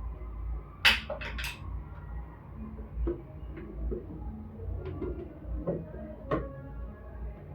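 A few sharp clicks and knocks of an electric kettle's plastic parts being handled and fitted back together, three in quick succession about a second in (the first the loudest) and a few smaller ones later, over a low steady hum.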